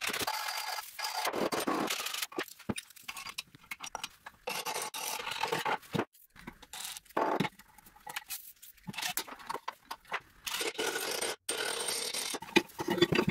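Metal scraping and clinking from work on the rusted cast-iron parts of an antique Singer sewing machine. It comes in irregular short stretches with sharp clicks, broken by brief gaps.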